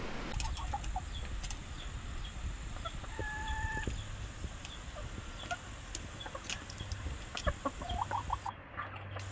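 Chickens clucking, with short calls scattered throughout and a brief steady high note about three seconds in.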